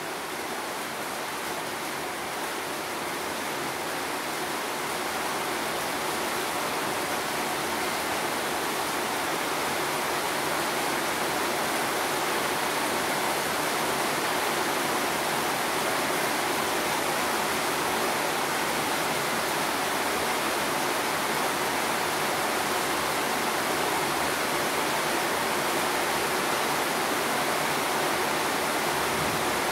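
Steady rain hiss, an even wash of noise with no separate drops or thunder standing out, growing a little louder over the first several seconds.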